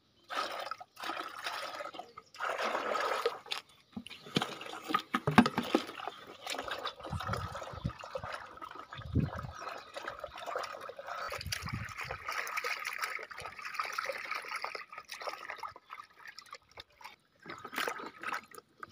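Water poured from a plastic bucket into a large plastic tub, then hands swishing and splashing okra about in the water to wash it.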